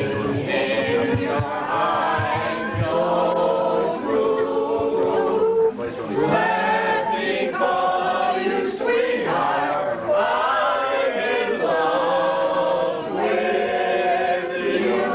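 A group of people singing a song together, unaccompanied, in long held notes.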